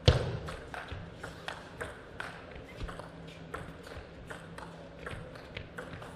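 Table tennis rally: the plastic ball clicking off the players' rubber-faced bats and the table in quick alternation, about three clicks a second, with the loudest knock right at the start.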